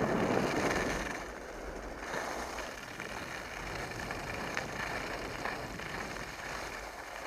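Skis sliding and scraping over groomed snow, loudest in the first second as the skier slows, then a steady hiss with a few faint clicks.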